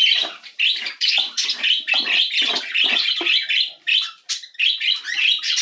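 Budgerigars chattering and chirping, with short scraping and rustling strokes as wood shavings are scraped off the floor of a nest box.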